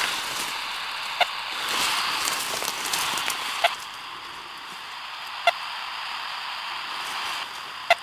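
Radio-telemetry receiver beeping with the pulses of the rattlesnake's radio transmitter: four short pips about two seconds apart. Under them is the rustle of leaves and brush being pushed through.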